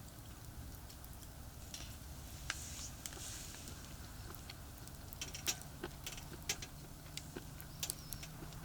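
Wood and charcoal fire crackling, with scattered sharp pops, the loudest between about five and eight seconds in, and a brief hiss about three seconds in. Under it, a steady low drone of traffic on a nearby expressway.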